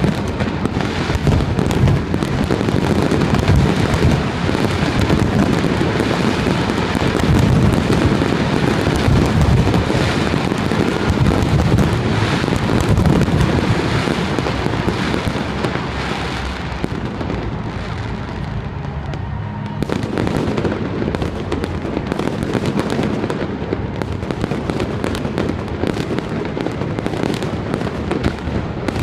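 Fireworks display: a dense, continuous barrage of shells bursting and crackling overhead, with heavy low booms. The booms are thickest in the first half and thin a little toward the end.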